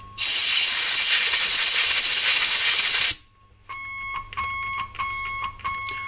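A loud blast of compressed air hisses for about three seconds into a crackling clean/crunch switch on a Marshall JCM2000 DSL100 valve amp, to clean its contacts. After a brief gap a steady high test tone comes back through the amp, broken by clicks several times as the switch is worked.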